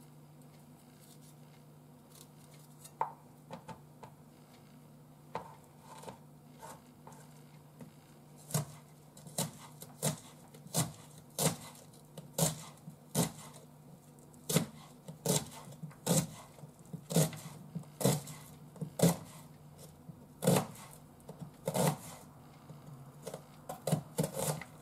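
Kitchen knife slicing an onion on a cutting board. There are only a few light clicks at first, then steady chops land a little more than once a second from about eight seconds in.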